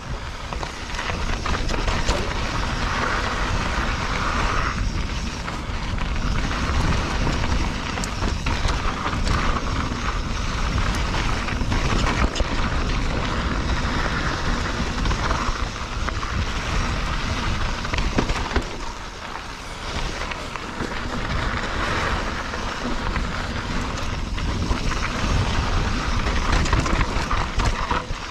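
Mountain bike ridden over a dirt trail: tyres rolling on dirt and the bike rattling over bumps, with wind buffeting the microphone. It is briefly quieter about two-thirds of the way through.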